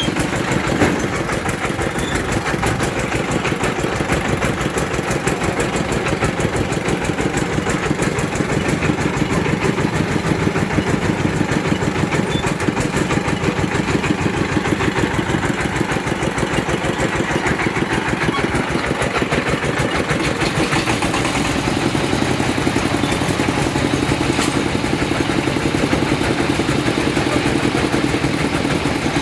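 Engine of a well-drilling rig running steadily at an even speed, its firing pulses fast and regular.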